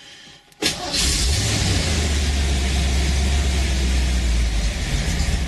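1988 Mustang GT's 5.0 V8 catching about half a second in and running at a fast, steady rev on held throttle, easing off near the end. It is started cold and can only be kept running with throttle, a cold-start fault the owner blames on an ECU damaged when a frayed TAD wire shorted.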